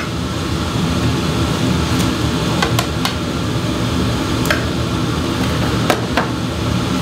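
Ceramic bowls knocking and clinking as they are set down one after another on a stainless-steel kitchen counter, about seven sharp knocks, over the steady hum of a commercial gas range and kitchen ventilation.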